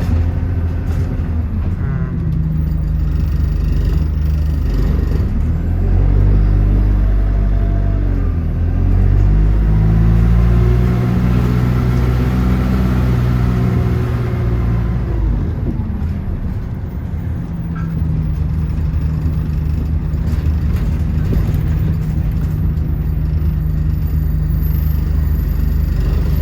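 Bus engine running under way, its pitch rising and falling several times in the first half as it pulls away and eases off, then settling to a steady low drone.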